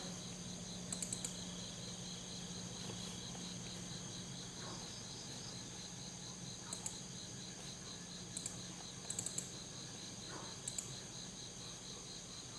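Small clusters of two to four short, sharp clicks, about five times, over a steady low electrical hum and a faint, high, pulsing whine.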